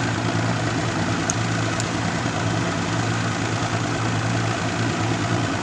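Boat engine running steadily, a low even hum that holds level throughout.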